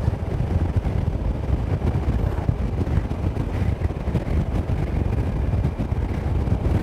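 KTM 990 SMT motorcycle riding at road speed: heavy wind buffeting on the microphone over the steady running of its V-twin engine.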